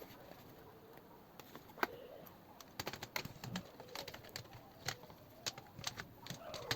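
Irregular light clicks and taps of computer parts being handled and fitted into a PC case, as the motherboard is offered up to its standoffs.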